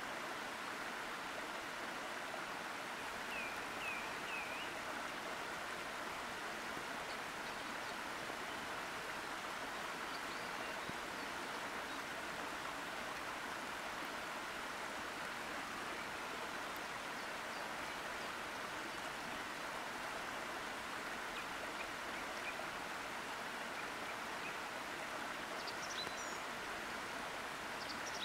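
Steady rushing of a waterfall pouring into a pool. A few short, faint high chirps come through about three to five seconds in and again near the end.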